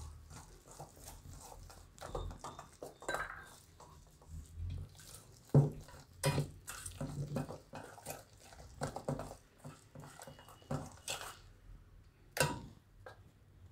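Wire whisk beating thick gram-flour batter in a stainless steel bowl, its wires knocking and scraping against the metal in irregular strokes.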